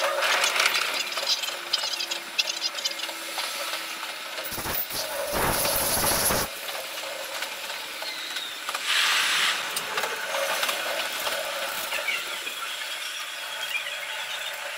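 Cab-ride sound of a Seibu Shinjuku Line electric commuter train running, sped up five times: a fast clatter of wheel and track noise, with a loud rushing burst about five seconds in.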